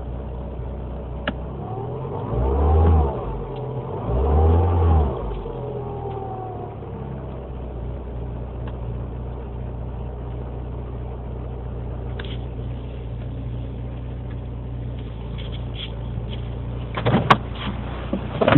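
Mini Cooper S four-cylinder engine idling cold while it warms up, with the revs rising and falling twice about two and four seconds in before settling to a steady idle. A few sharp knocks near the end.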